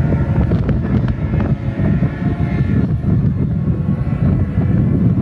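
Wind buffeting the microphone in a loud, uneven low rumble, with a faint steady hum underneath.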